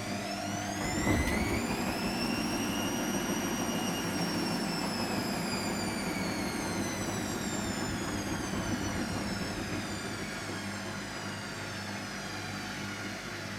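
Hotpoint Extra WMXTF742K washing machine's drum motor whining as the drum speeds up over the first few seconds, then slowly dropping in pitch as the drum winds down, with a brief thump about a second in.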